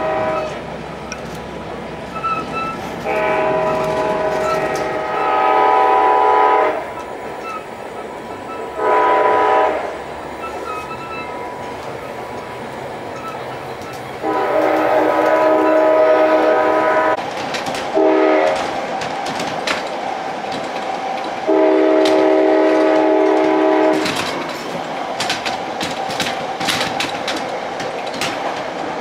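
Commuter train's multi-note air horn sounding about six blasts: three long ones of roughly three seconds with short toots between. Train running noise lies underneath, with wheels clicking over rail joints near the end.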